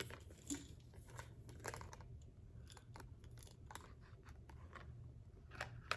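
Faint, scattered small clicks and rustles of a packaged pair of earrings being handled and unwrapped.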